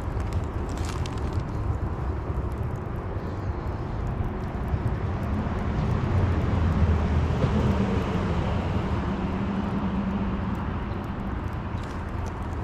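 A low engine drone that grows louder around the middle and then fades, over a steady low rumble.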